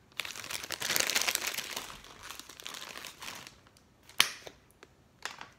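Plastic chip bag of Doritos crinkling and rustling as it is handled for about three seconds, then a sharp tap about four seconds in and a lighter one about a second later.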